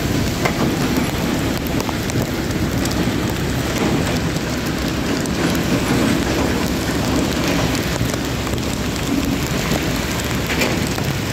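Steady noise of a motorbike ride in heavy rain: wind buffeting the phone's microphone, rain falling, and tyres hissing on the wet road, with scattered small ticks of raindrops.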